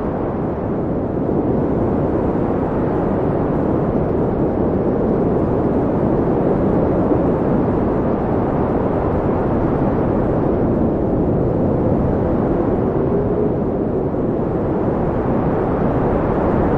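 Wind blowing steadily, a deep, even rushing noise with a faint moaning tone that rises and falls briefly near the end.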